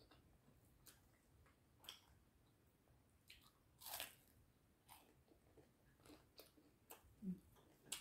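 A bite into a fried chicken nugget about four seconds in, the loudest sound, with small eating and mouth clicks scattered before and after it.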